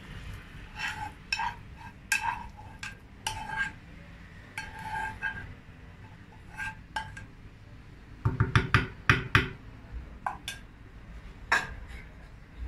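Metal spoon scraping and clinking against a saucepan as potato filling is spooned out of it, each stroke a short ringing clink. About eight seconds in comes a quick run of louder knocks, the spoon tapped against the pan.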